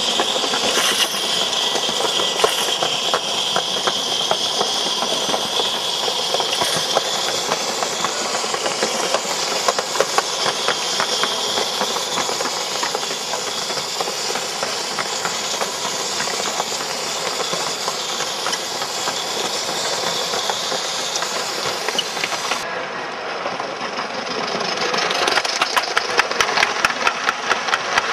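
Gauge 1 (45 mm) live steam locomotive running, with a steady hiss of steam over a rapid mechanical ticking. Near the end, model freight wagons roll past close by, and their wheels click louder and faster on the track.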